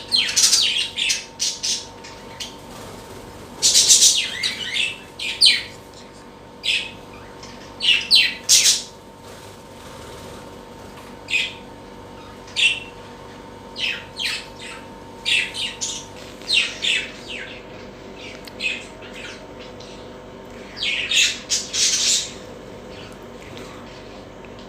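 Pet birds squawking and chirping in short, sharp calls that come in clusters, a few at a time, with brief gaps between.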